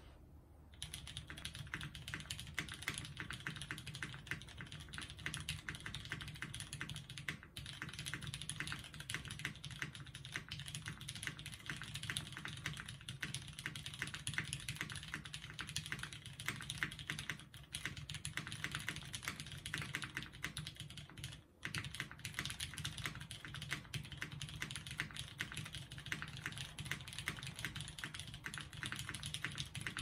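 Steady fast typing on a mechanical keyboard with lubed Cherry MX Brown Hyperglide tactile switches on an aluminum plate, O-ring mounted in an IU V1 prototype case, with GMK keycaps, recorded on an iPhone. Dense key clicks start about a second in, with a brief pause about 21 seconds in.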